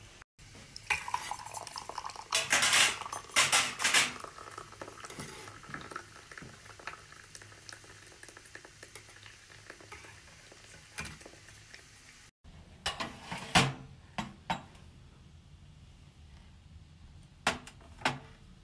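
Plates, tea glasses and cutlery clinking and clattering on a table, in a few short bursts of sharp clicks with quieter stretches between.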